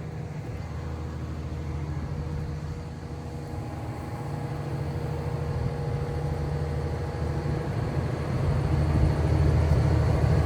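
Kobelco SK500LC-9 excavator's diesel engine running steadily, growing louder toward the end.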